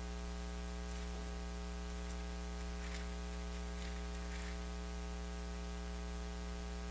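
Steady electrical mains hum with a layer of hiss from the sound system, broken by a few faint, brief rustles.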